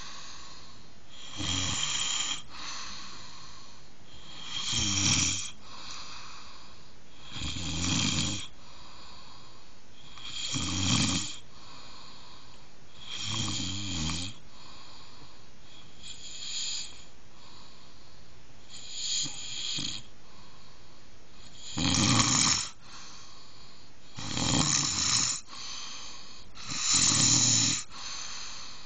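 Snoring in a steady rhythm, one loud snore every two and a half to three seconds. Each snore is a low rattling rumble with hissing breath. The snores are a little weaker past the middle and stronger toward the end.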